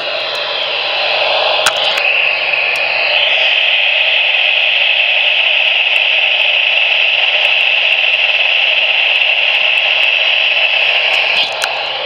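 Loud, steady static hiss from a Midland NOAA weather radio's speaker, which cuts off suddenly near the end.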